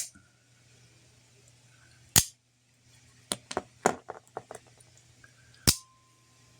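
Out-the-front automatic knife firing and retracting its blade: a sharp snap about two seconds in, a quick run of lighter clicks, then another sharp snap near the end.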